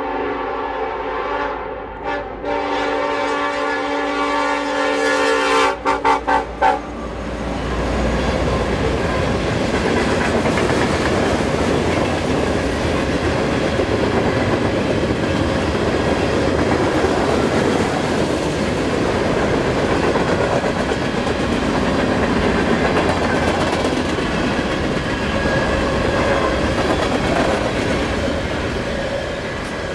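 Diesel locomotive's five-chime Nathan K5LLA air horn blowing in long blasts with short breaks, the last ones choppy, until about seven seconds in. Then the freight train runs through the crossing: a steady rumble and clatter of the cars' wheels on the rails.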